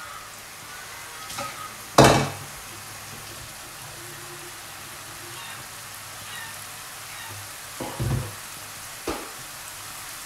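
Sliced onions frying in hot oil with cumin seeds, sizzling steadily as they start to brown. A sharp clank about two seconds in is the loudest sound, and two smaller knocks come near the end.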